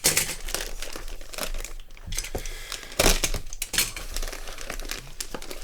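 Packaging being opened by hand: dense crinkling and rustling with a few sharper rips, loudest about three seconds in.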